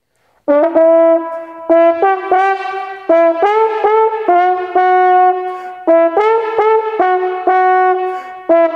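Solo trombone playing a range-building exercise on E, A and F sharp: a phrase of separately tongued notes ending on a held tone, begun about half a second in and started again about six seconds in. The pattern is one step in working up by half steps past the high notes the part needs.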